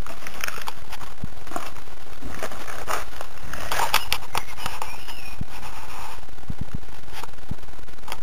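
Clicks and scuffs, most likely a Staffordshire bull terrier's claws on concrete paving as it walks, with a few short rustling bursts over a steady low rumble.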